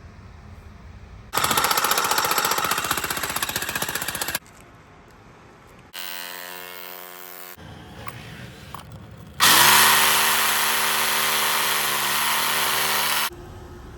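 An electric power tool run in three bursts, with a hammering rattle: about three seconds of rattle starting a second in, a shorter and quieter whine around the middle, then the loudest run of rattle with a motor whine for about four seconds near the end.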